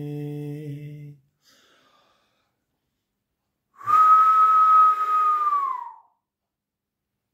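A man's low hummed note fades out about a second in; after a pause he whistles one long loud note through his lips, held steady and sliding down at the end.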